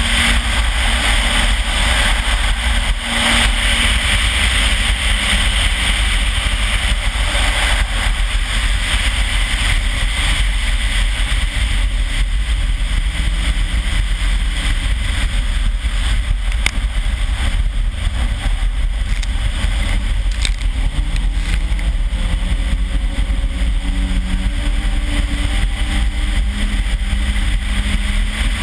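Turbocharged Toyota 3S-GTE inline-four in a RAV4 running at speed across wet ice and slush, its note rising and falling a few times under a steady hiss of tyres and spray. A heavy wind rumble on the outside microphone covers much of the engine.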